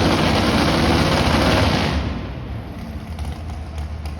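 Modified four-wheel-drive pulling truck's engine running at full throttle, loud and rough, then dropping off sharply about two seconds in to a lower engine rumble.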